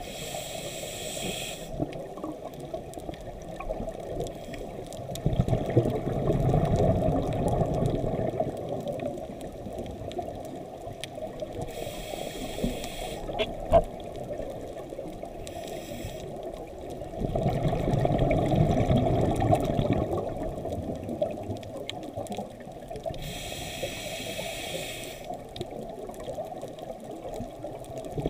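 Scuba diver breathing through a regulator underwater: short hissing inhales come every several seconds, and two longer, louder rushes of exhaled bubbles follow. There is a single sharp click near the middle.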